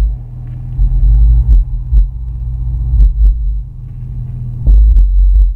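Two Rockford Fosgate T1 12-inch subwoofers, powered by a 1500-watt RMS monoblock amplifier, playing heavy bass in the Escalade. The deep low end swells and pulses irregularly, with sharp rattles and clicks over it.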